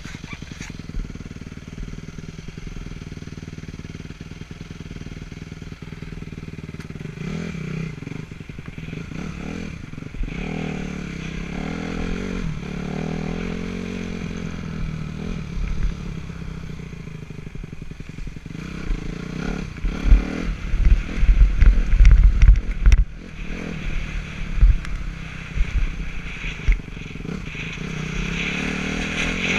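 Honda motocross bike engine idling steadily, then revving up and down as the bike pulls away. Loud low thumps come about twenty seconds in, and the engine rises again near the end.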